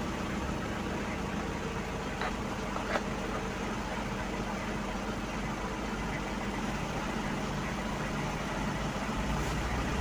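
Ford Everest TDI turbodiesel engine idling steadily just after starting, heard from inside the cabin, with two light clicks about two and three seconds in.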